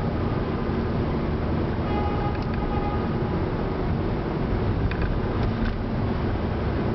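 Steady rumble of car and tyre noise in a road tunnel, with a faint brief tone about two seconds in and a few light clicks near the end.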